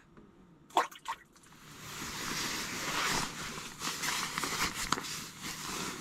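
Close rustling and handling noise, like a padded jacket and the camera being moved against each other, building up from about a second and a half in, after two brief sounds just under a second in.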